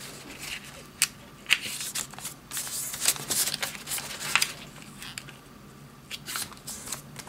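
Sheet of origami paper being folded and creased by hand: irregular rustles and short crisp strokes as fingers bend the flaps in and press the creases flat.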